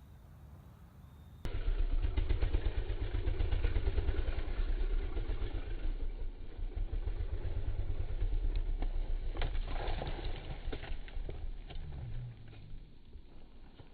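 Dirt bike engine running at low revs with a steady pulsing beat, cutting in abruptly about a second and a half in and dropping away near the end. A few sharp knocks and clatter come through about ten seconds in.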